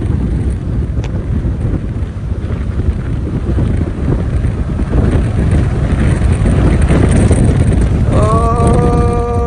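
Strong wind buffeting the microphone: a loud, continuous low rumble. Near the end a held, pitched tone with overtones sounds for about two seconds, then drops in pitch and stops.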